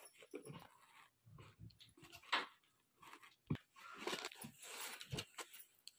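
Faint rustling and crinkling of a cardboard box and its white foam packing sheet handled by hand as the box is opened, with a few soft knocks.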